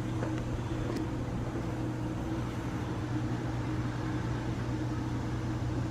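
Steady low hum with an even background noise, and one faint click about a second in.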